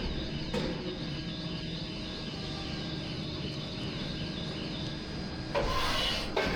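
Direct-clamp hydraulic PET preform injection molding machine running, a steady mechanical hum and hiss with a few clicks; about five and a half seconds in it gets louder and harsher.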